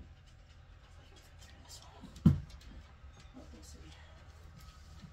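A single sharp thump against the wooden bed frame about two seconds in, with a few faint knocks and shuffles around it as someone works underneath the frame.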